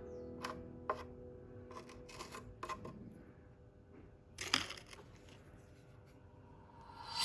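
Scattered light clicks and taps of small objects being handled, with a short scraping rustle about four and a half seconds in. Background music fades out at the start and comes back loudly at the very end.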